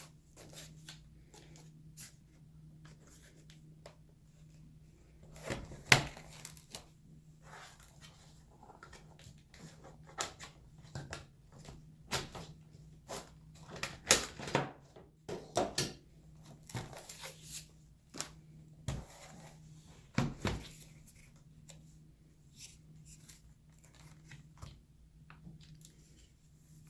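Hands handling a plastic HP laptop: irregular clicks, knocks and rustles as the battery is released and taken out and the machine is moved about, with sharper knocks about 6, 14 and 20 seconds in. A faint steady low hum runs underneath.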